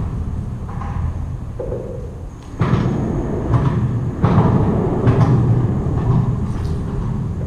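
Low, steady rumble of traffic on the road bridge overhead, heard from underneath, with a sudden heavy thump about two and a half seconds in and another swell in the rumble a second and a half later.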